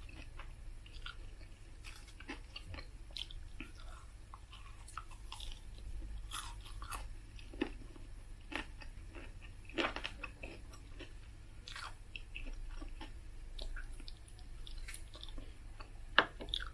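A person chewing and biting food close to the microphone, with irregular small crunches and mouth clicks, a few sharper than the rest.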